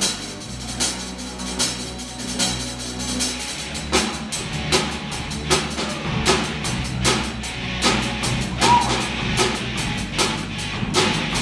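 Live rock band playing electric guitars over a drum kit, with a steady beat; the drums come in fuller about four seconds in.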